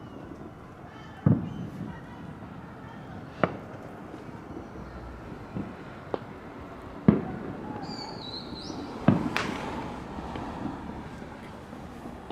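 Fireworks and firecrackers going off in scattered single bangs, about six sharp reports at irregular intervals, some with a short echo trailing after them; the loudest comes about seven seconds in.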